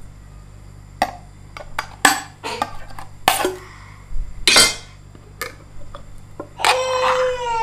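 Sharp metallic clicks and short scrapes as a metal utensil pries up the ring-pull tab on a tin can. Near the end a young child's voice cries out, falling in pitch.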